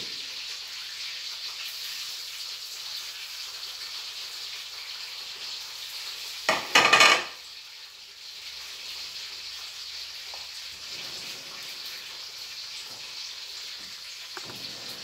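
Catfish frying in hot oil in a wok, a steady sizzle, with a brief loud burst of noise about six and a half seconds in.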